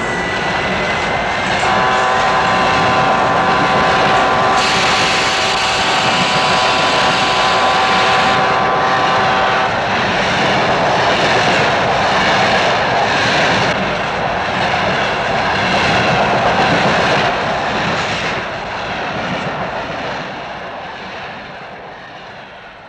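Electric commuter train rushing past at speed, a loud steady roar of wheels and rushing air. Its horn sounds one long, steady multi-tone blast from about two seconds in to about ten seconds in. The roar fades away over the last few seconds.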